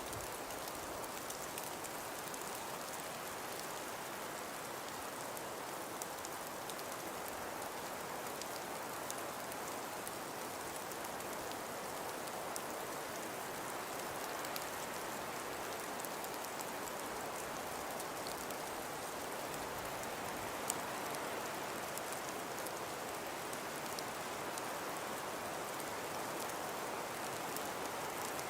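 Steady hiss of wind-driven falling snow, with fine ice grains ticking against surfaces.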